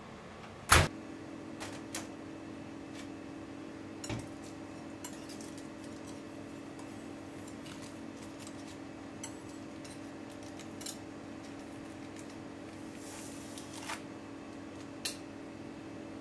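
Metal baking tray and wire cooling rack handled on a steel counter. A loud metallic clack comes about a second in, then scattered light clinks and taps, over a steady low hum.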